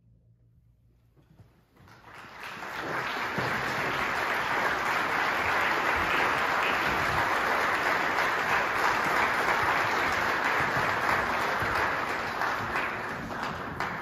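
A brief near silence, then audience applause that rises about two seconds in and holds steady, thinning slightly near the end.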